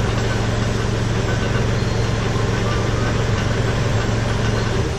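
Kubota L3901 tractor's three-cylinder diesel engine idling steadily, an even low hum that stops abruptly at the very end.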